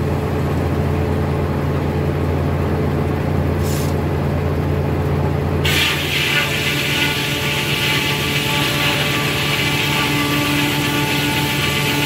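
Foley Belsaw circular sawmill running with a steady low hum. A little before halfway the blade bites into a squared timber and cuts through it under load, adding a loud, high-pitched whine that goes on for several seconds.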